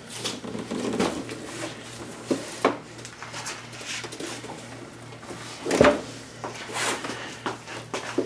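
Handling noises as a flat-screen TV panel with a sheet-metal back is turned over and laid on a workbench: rustling, light knocks and clatter, with one louder thump about six seconds in.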